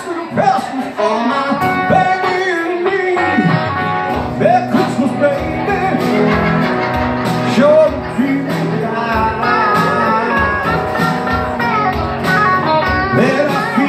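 Live blues played on an acoustic-electric guitar and an electric guitar, with a man's voice singing over them.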